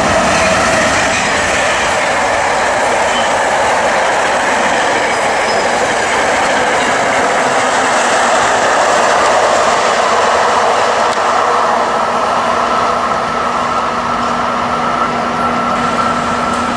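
NJ Transit electric-hauled passenger train passing close by at speed: steady loud rumble of wheels on rail with clickety-clack over the rail joints. A steady low hum joins about halfway through.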